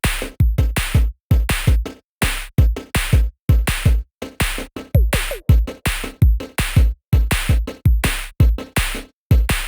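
Electronic background music with a steady drum-machine beat: heavy kick drums and chopped synth stabs that cut off sharply.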